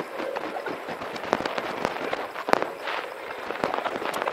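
Aerial firework shells bursting in quick succession: many sharp bangs over a continuous crackle, the loudest bang about two and a half seconds in.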